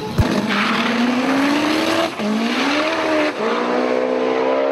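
Chevy Cobalt drag car's heavily modified turbocharged LNF four-cylinder accelerating hard down the strip from the launch. Its pitch rises, drops abruptly at gear shifts about two seconds in and again about three seconds in, then holds high.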